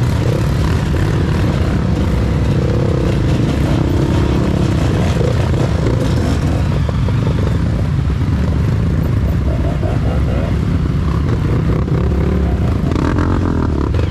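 Trail motorcycle engines running over a steady low rumble, their pitch rising and falling as they rev.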